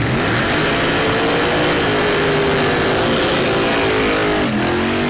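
Burnout by a 1960s Mercedes-Benz fintail sedan: the engine is held at high revs while the rear tyres spin on the tarmac, then the revs drop sharply near the end and pick up again.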